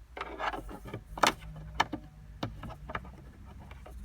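Plastic dashboard trim pieces and storage boxes being handled and fitted back into a car's dash: a run of irregular clicks and knocks, the sharpest about a second in.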